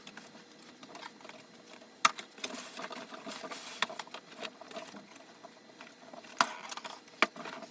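Rustling and handling of packaging as a large RC truck is worked out of its box, with a few sharp clicks and knocks spread through it.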